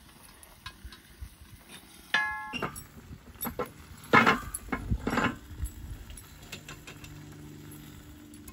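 Metal clanks and knocks as a cast iron Dutch oven is taken off a tripod chain and set down on a steel grate, with a short metallic ring about two seconds in and the loudest clunks around four to five seconds.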